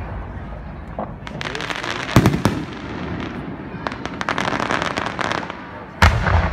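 Aerial fireworks shells bursting: two heavy booms, about two seconds in and again near the end, with dense clusters of rapid crackling from crackling-star effects in between.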